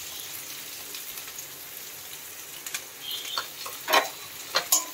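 Chopped onions frying in hot oil in a kadhai: a steady sizzle. From about three seconds in, a few sharp knocks of a utensil against the pan.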